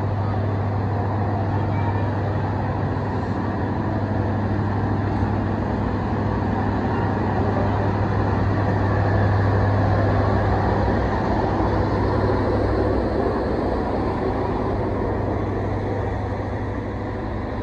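Steady low drone of the diesel generator in the power car of a stopped intercity passenger train, over a dense mechanical hum. The drone weakens a little in the last few seconds.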